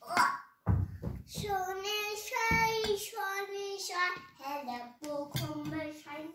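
A young child singing a wordless tune in a high voice, holding long notes.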